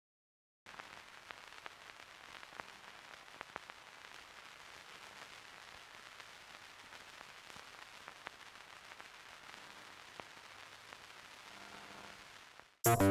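Crackly surface noise, a steady faint hiss with scattered clicks and pops, starting about half a second in. Near the end it cuts off and music comes in suddenly and loudly.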